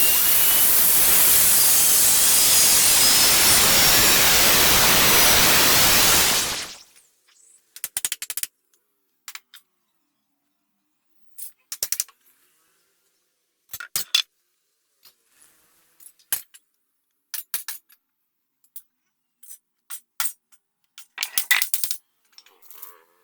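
An electric power tool running loudly on wood, cut off sharply about six and a half seconds in. It is followed by scattered short clicks and knocks of small wooden pieces being handled and set down.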